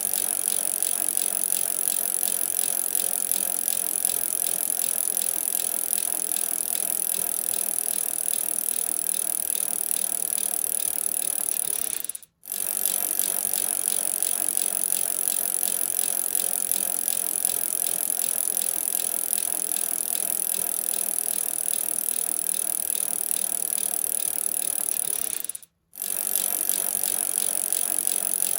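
Bicycle chain and drivetrain running with a steady, fast rattle. It stops for a moment twice, once about halfway through and once near the end.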